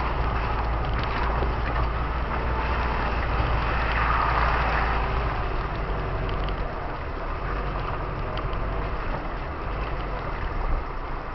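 Off-road 4x4's engine running steadily as it drives slowly along a muddy track, heard from inside the cab, with tyre and mud noise that is loudest about four seconds in and eases off after that.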